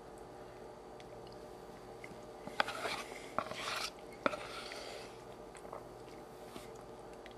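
Plastic spoon scraping and tapping inside a plastic yogurt cup: a few sharp clicks and a short scraping rub about two and a half to four seconds in.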